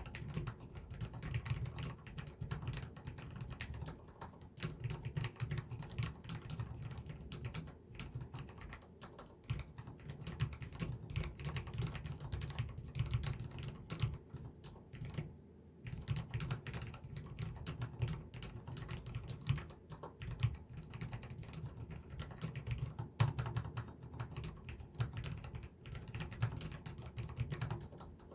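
Fast typing on a Cherry MX Board 10.0 Low Profile RGB keyboard with low-profile Cherry MX Red linear switches: a dense, continuous clatter of keystrokes. There are short breaks about 8 and 15 seconds in.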